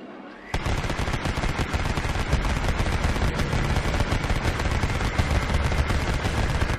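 Sound effect of sustained automatic gunfire: a dense run of rapid shots that starts suddenly about half a second in, just after a short rising tone.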